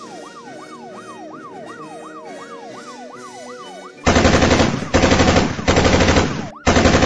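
A siren wailing rapidly up and down, about three sweeps a second. About four seconds in it gives way to much louder bursts of rapid machine-gun fire, repeated with short breaks between them.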